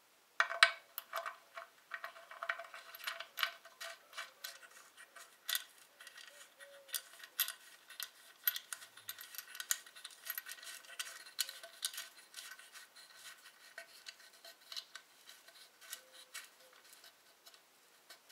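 Oil drain plug being screwed into the engine's oil sump by hand: irregular small metallic clicks, ticks and scrapes of the plug and its threads, several a second, the loudest near the start.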